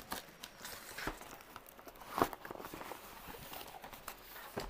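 Long cardboard shipping box being pulled up and handled, its cardboard rustling and scraping, with scattered knocks; the loudest knock comes about two seconds in.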